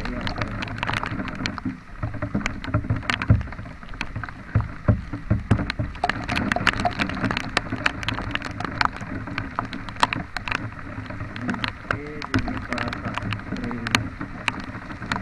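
Rain spattering on the microphone during a ride, with many sharp irregular taps over a steady rumble of road and wind noise.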